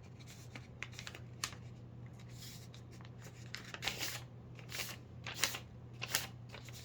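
A sheet of paper being handled and folded by hand: crisp rustles and creasing strokes at an irregular pace, the loudest a few seconds in. A steady low hum lies underneath.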